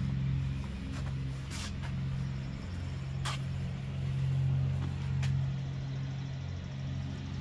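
A steady low mechanical hum with a few fixed low tones, broken by three faint clicks roughly two seconds apart.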